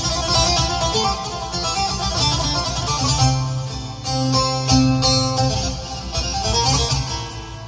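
Music played on a Korg Pa5X arranger keyboard using a Turkish sound pack: a plucked-string lead over a bass line and steady percussion.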